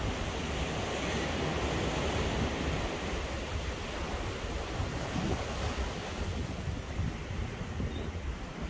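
Ocean surf washing steadily onto the beach, with wind blowing across the microphone and adding a low rumble.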